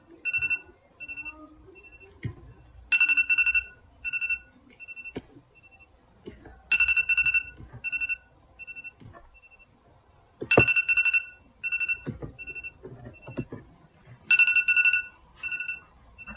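A phone ringing: a trilled electronic ring of just under a second repeats about every four seconds, each ring followed by three or four short, fainter beeps. A few scattered knocks fall between the rings.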